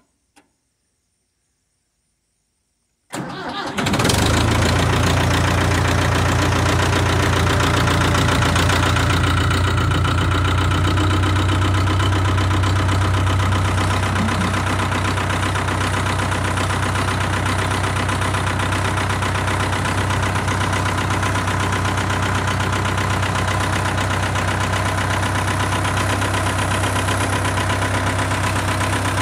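Ford 5000 tractor's four-cylinder diesel engine on a cold start: two faint clicks, then about three seconds in it cranks for under a second, catches and settles into a steady idle, a little quieter from about halfway on.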